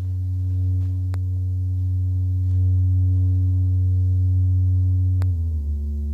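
Noise Engineering Sinc Iter Eurorack oscillator in its plain mode, sounding a low, steady tone with overtones that starts at once. About five seconds in, its pitch drops. Two faint clicks are heard along the way.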